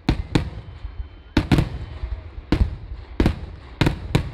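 Kerala festival fireworks (vedikettu) going off in an irregular volley of loud, sharp bangs, about eight in four seconds, each trailing off in a short echo.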